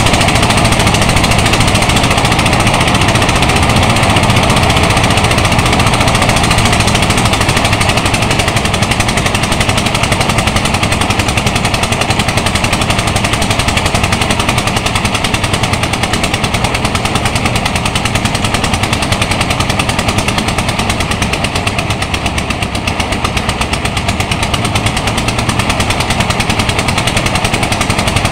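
Engine-driven portable rice thresher running under load as bundles of rice stalks are fed in, a loud, steady, rapid clattering of engine and threshing drum.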